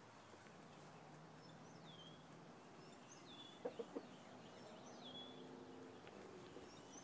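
Chickens clucking faintly and softly, with three quick clucks about halfway through. A small wild bird's thin falling chirp repeats every second or two.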